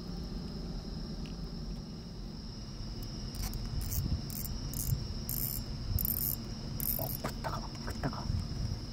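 Crickets chirring steadily in one high, even tone, over a low rumble. From about a third of the way in come several short bursts of hiss, and near the end a few soft knocks.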